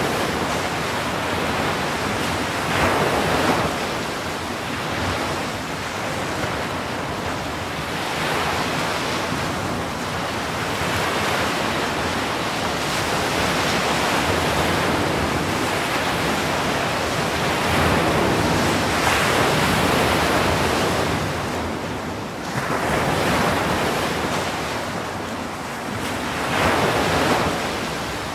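Ocean surf breaking on the shore: a continuous rush of foaming water that swells into a louder surge every few seconds as each breaker comes in and washes up the beach.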